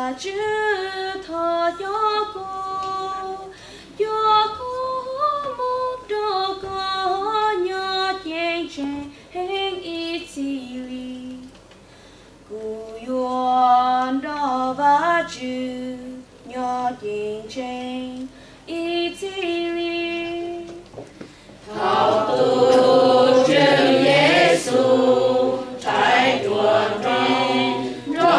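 A woman sings a Hmong hymn alone, unaccompanied, in a slow melody with short pauses. About 22 seconds in, the full mixed choir comes in, much louder.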